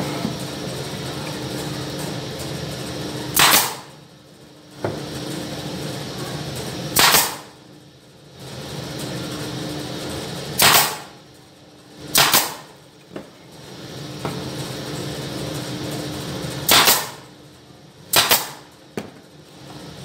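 Pneumatic brad nailer firing into wood about seven times at irregular intervals, each shot a sharp bang with a short hiss of air, two in quick succession near the end, over a steady background hum.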